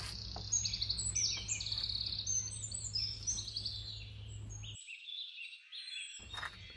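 A chorus of small birds chirping and twittering in quick, overlapping calls, over a steady low hum that cuts out briefly about five seconds in.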